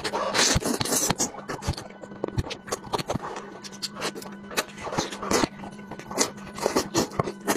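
Close-miked eating: sucking and slurping meat off fish-head bones, with wet lip smacks, smacking chews and short bursts of sucking, irregular throughout.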